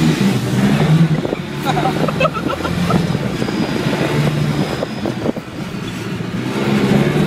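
Side-by-side off-road vehicle's engine running under way, its pitch rising and falling as the throttle is worked, with knocks and rattles from the ride over rough ground.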